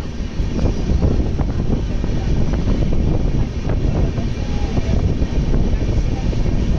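Express train rolling slowly through a station: a steady, loud low rumble with scattered clicks from the wheels and coaches.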